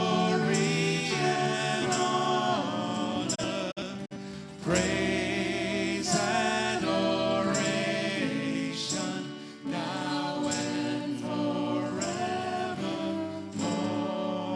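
Music: singing voices with instrumental accompaniment, with a short break between phrases about four seconds in.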